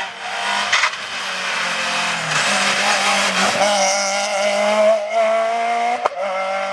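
Rally car engine running hard as the car passes at speed. The engine note shifts between about two and three and a half seconds in, then holds a steady high note. A sharp click comes about six seconds in.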